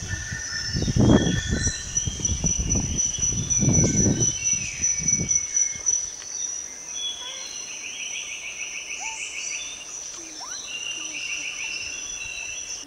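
Outdoor chorus of insects and birds in summer grassland: a steady high-pitched buzz with repeated short rapid trills and scattered chirps. For the first five seconds or so, low rumbling buffets hit the microphone, then stop.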